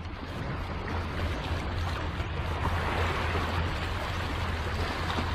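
Small harbour waves washing and trickling over a shallow, submerged rock shelf, a steady wash of water under a low rumble.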